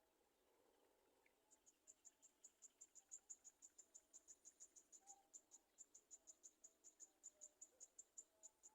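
Faint insect chirping: a rapid, even series of short high chirps, about six a second, starting about a second and a half in.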